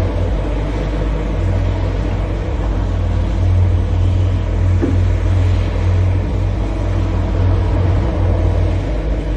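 Large diesel-powered excavator running under load: a steady low engine drone with a rumble that swells from about a second and a half in.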